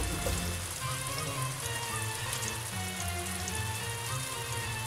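Lamb mince kebab patties sizzling steadily as they shallow fry in hot oil in a pan, with background music over it.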